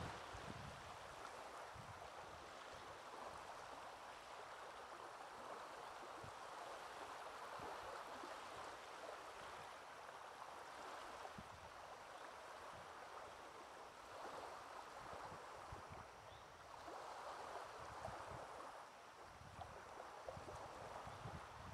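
Faint, gentle wavelets lapping on a pebbly shore: a steady wash that swells and eases every few seconds.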